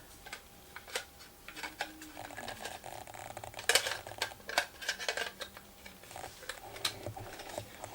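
Light clicks, taps and rattles of a plastic 2.5-inch hard-drive enclosure and an SSD being handled, with faint rubbing between them. Two sharper clicks come a little before the middle.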